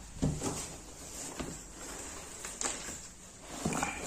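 A handful of light, irregularly spaced knocks and thumps in a small room, with a small cluster near the end.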